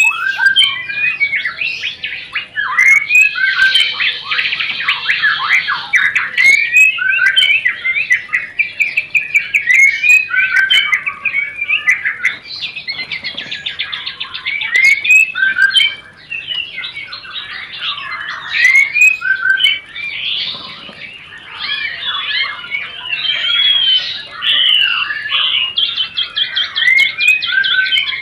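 White-rumped shama (murai batu) singing in breeding condition. It gives a continuous stream of sweeping whistled notes mixed with fast rattling chatter (rencetan). This is the mating song that keepers play as a lure to bring other shamas into breeding mood.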